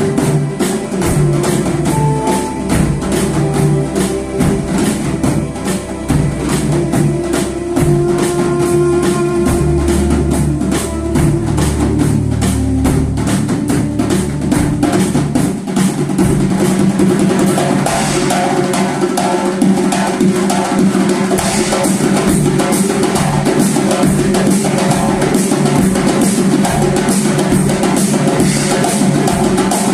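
A drum ensemble playing a fast, steady rhythm over a melodic accompaniment. About halfway through the drumming turns denser and fuller while the melody drops back.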